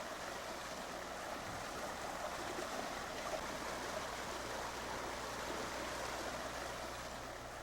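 Steady rushing water, easing off slightly near the end.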